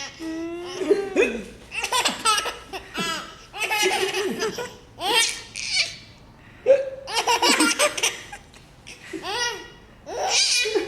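A person laughing hard in repeated high-pitched bursts, about one a second, broken by hiccups.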